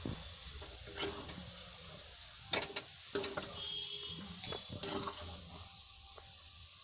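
A spoon stirring and scraping through moong dal paste and ghee in a pan while it roasts on a low flame, with a few sharp scrapes and knocks against the pan, the loudest about two and a half and three seconds in.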